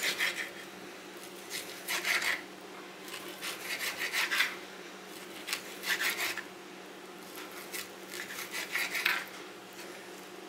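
Kitchen knife cutting through raw slab bacon on a wooden cutting board, in four short bursts of quick rasping strokes with brief pauses between.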